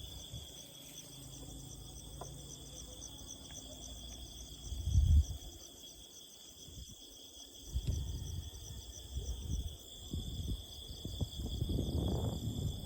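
Insects chirring steadily in a continuous high, pulsing trill. Low rumbles break in, the loudest about five seconds in and more of them through the second half.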